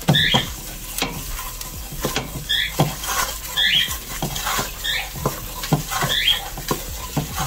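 Wooden spoon scraping and squeaking against the bottom of a stainless steel pot while stirring a thick, sizzling butter-and-flour roux. There are short high squeaks about every second or so, with light knocks of the spoon in between.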